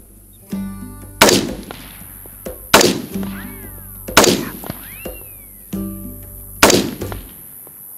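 Four shots from a Christensen AR-15 chambered in 5.56/.223 Wylde, the first three about a second and a half apart and the fourth after a longer pause, each trailing off. Background music plays throughout.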